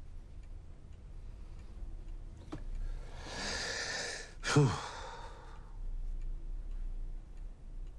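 A long, heavy sigh of distress: a breathy exhale lasting about two and a half seconds, with a short falling groan near its middle.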